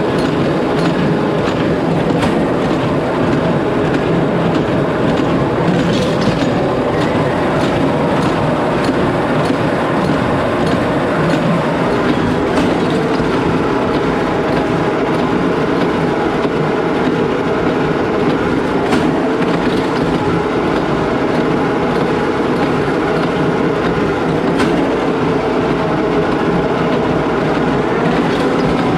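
A John Deere 4055 tractor and a New Holland BC5070 small square baler running while baling hay. The machine noise is loud and steady, with a sharp click every few seconds.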